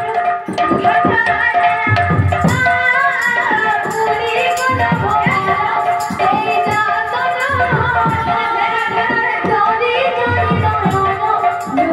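Odia kirtan music: a woman sings a wavering melody over a steady held drone note, with a shoulder-slung barrel drum (mridanga) beating a driving rhythm of low strokes.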